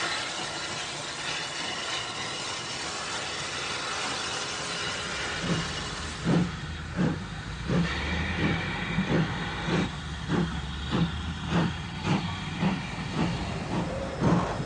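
Caledonian Railway No. 123, a 4-2-2 single-driver steam locomotive, hissing steam at first. About five seconds in its exhaust beats begin, a steady chuff roughly twice a second as it pulls away.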